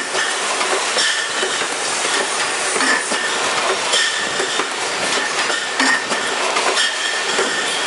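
Robotic beverage bottle case packer running: a steady clatter of machinery and glass bottles, full of small clicks and knocks, with short hisses of air about a second, four seconds and seven seconds in.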